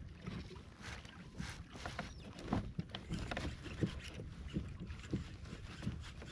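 Water lapping and splashing against the hull of a moving kayak, with wind on the microphone and scattered light knocks and ticks.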